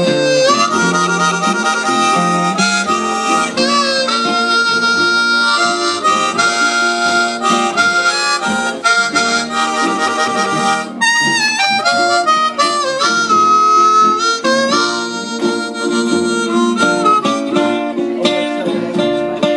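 Live country band playing an instrumental break: a lead melody of held, bending notes over acoustic guitar backing.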